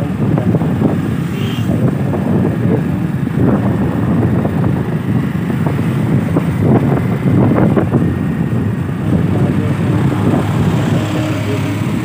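Motorcycle riding along a road: wind rumbling on the microphone with the bike's engine running underneath.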